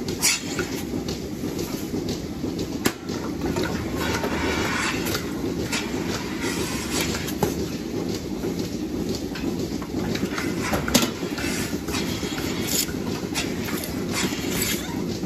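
Steady low din of milking-parlour machinery, with scattered sharp clicks and clanks as milking clusters and hoses are handled and attached.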